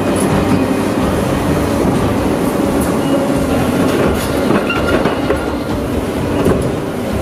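Tracked excavator tearing up old tram rails with a demolition grapple: the engine runs steadily under scattered clanks and scraping of steel rail and broken paving. A brief metallic squeal comes about four and a half seconds in.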